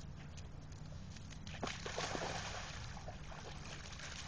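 Dogs wading and splashing through shallow lake water, with the splashing loudest around two seconds in.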